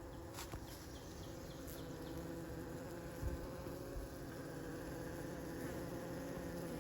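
Honeybees buzzing at a hive entrance: a steady hum of many wingbeats, with two soft low bumps about three and four seconds in.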